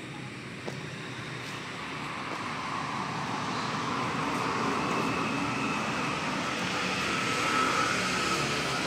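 A steady mechanical drone with a faint whine, swelling over the first few seconds and then holding.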